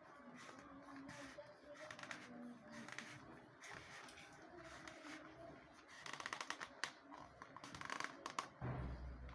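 Packaging being handled by hand: a run of light clicks, crinkles and taps that grows busier and louder from about six seconds in.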